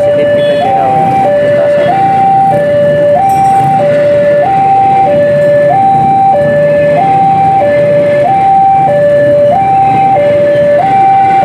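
Railway level-crossing warning alarm sounding a steady two-tone high-low pattern, about one cycle every 1.3 s, while an ex-JR 205 series KRL electric commuter train rumbles past on the rails.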